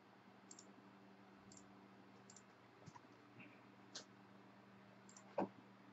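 Several faint, irregular clicks of a computer mouse over near silence, the loudest near the end, with a faint steady low hum beneath.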